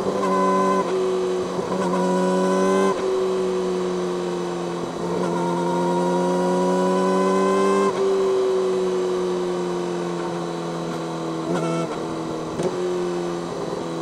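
Yamaha YZF-R6 inline-four engine through an Akrapovic megaphone slip-on exhaust, running under way. The pitch climbs for a few seconds and then falls away, with brief breaks and jumps in pitch at about one, three and twelve seconds in.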